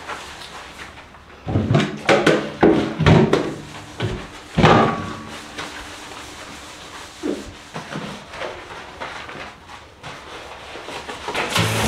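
Sponge scrubber rubbing and knocking against the inside of a bathtub, a run of loud strokes in the first half, then only a few faint ones.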